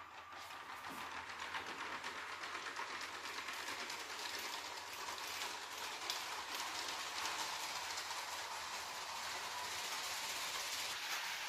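A brick-built model of a DB ET 403 electric multiple unit running on plastic toy-brick track: a steady rattling clatter of its wheels on the rails, getting louder over the first second or two as the train gets under way.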